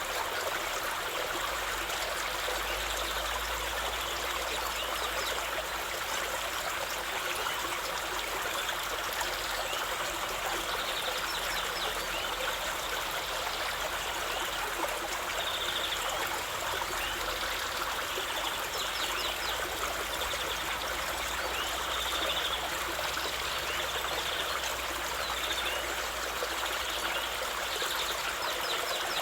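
Waterfall: water pouring and splashing over rocks in a steady, even rush with trickling.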